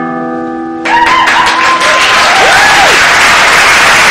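A final acoustic guitar chord rings on, then about a second in a live audience breaks into loud applause and cheering, with a whistle rising and falling.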